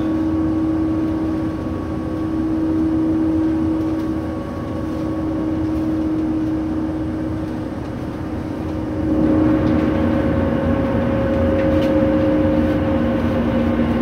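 Steady running noise of a moving vehicle heard from inside, a rumble with a steady hum through it. About nine seconds in it grows louder and a second, lower hum joins in.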